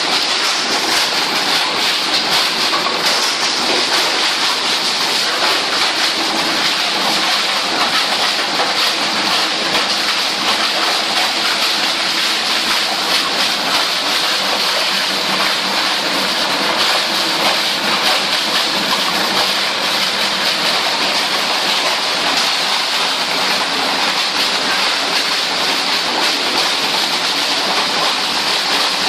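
Plastic shredder running, its blades chopping plastic waste into flakes with a dense, steady crackling clatter over the hum of the machine.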